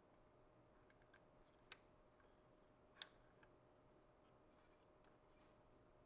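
Near silence: faint room tone with a steady low hum and two faint clicks, the second about halfway through.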